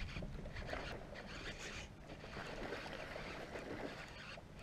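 Water lapping and splashing unevenly against the hull of a small fishing boat.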